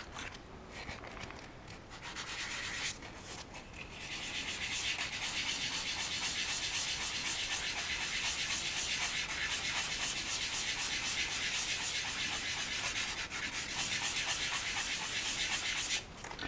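Sandpaper rubbed back and forth on a cast resin figure part, sanding down a mold line: a few scratchy strokes at first, then a steady fast rasping from about four seconds in until just before the end.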